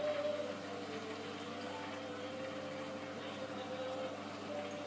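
Aquarium equipment running: a steady pump hum with a hiss of bubbling water, and a faint wavering tone in the background.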